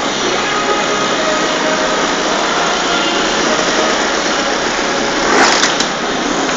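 Small trials motorcycle engine running steadily, with a short louder rising burst about five seconds in.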